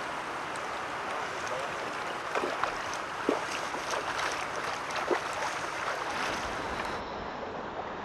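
Steady rush of a shallow river running over stones, with a few short splashes from a hooked Atlantic salmon thrashing at the surface.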